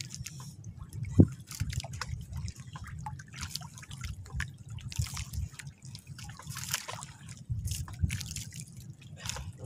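Small waves lapping and splashing against the hull of a small outrigger boat, with irregular drips and trickles over a low rumble. A single sharp knock comes about a second in.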